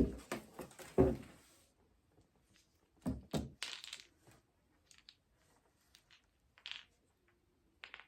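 Small items and packaging being handled and set down: a sharp knock at the start, more knocks about a second and three seconds in, with brief rustling and a few small clicks after.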